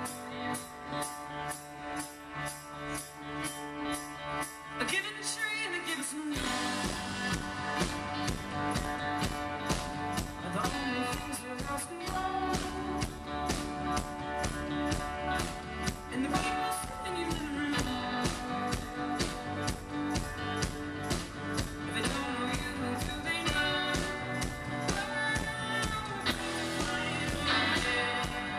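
A rock band with trumpets playing live. The opening is sparse, with a light steady beat. About six seconds in, the full band comes in louder, with bass, drums, electric guitar and trumpet lines.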